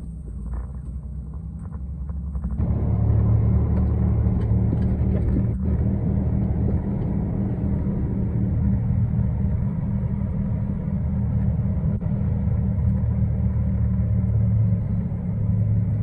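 Log truck's diesel engine heard from inside the cab as the truck drives along, a steady low rumble that gets louder about two and a half seconds in.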